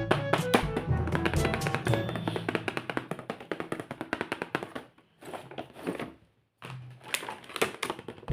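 Background music with a fast beat of sharp percussive hits and a bass line, breaking off briefly about five seconds in before starting again.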